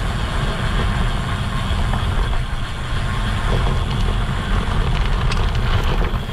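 Road bike tyres rolling over loose gravel chippings on a patched road, with wind on a handlebar-mounted camera's microphone: a steady, loud rumble with a few faint ticks near the end.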